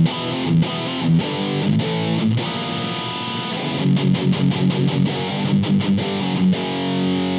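Fano Omnis MG6 electric guitar played through the IK Multimedia X-Drive pedal on its 'Just Fuzz' preset: fuzz-distorted riffing of quickly picked notes. A chord is held about two and a half seconds in, and another is left ringing near the end.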